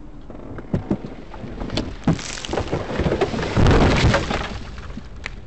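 Handling noise from a dashcam being picked up and moved: a few sharp knocks, then rubbing, scraping and rumbling on the microphone that is loudest about three and a half seconds in.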